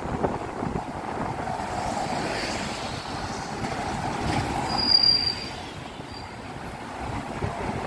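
MTR train running with a steady rumble, with a brief high wheel squeal about five seconds in and a shorter one a second later.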